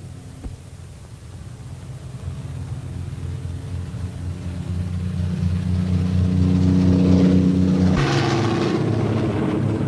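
Piston aircraft engine droning and growing steadily louder, as if approaching or running up. About eight seconds in it changes abruptly to a harsher, noisier engine sound.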